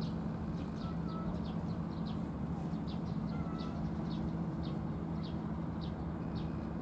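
A small bird repeating short, high chirps that slide downward, about two a second, over a steady background hum.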